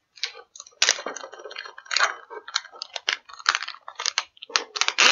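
Crinkling and rustling of an anti-static plastic bag, with cardboard packaging sliding and scraping, as a boxed circuit board is worked free; a quick run of irregular crackles.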